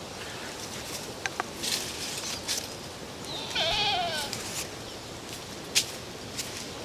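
A sheep bleats once, a wavering cry about a second long that starts about three seconds in. A few light clicks and rustles can be heard around it.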